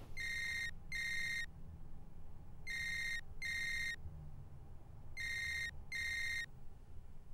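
Smartphone ringtone ringing: three double rings, each a pair of short high tones, the pairs about two and a half seconds apart.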